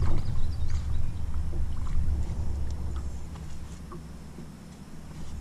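Wind rumbling on the microphone aboard a small aluminum boat, easing off toward the end, with scattered light knocks and taps.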